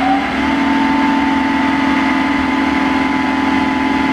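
Supercharger air blower of a fish-pond aerator, driven by a three-phase electric motor on an inverter set to 20 Hz. It finishes spinning up with a rising whine that levels off about half a second in, then runs steadily with a steady whine.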